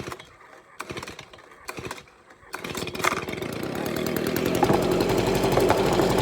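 Stihl BG 55 two-stroke handheld leaf blower cold-started with the recoil starter: three short pulls, then the engine catches about two and a half seconds in and runs, getting steadily louder.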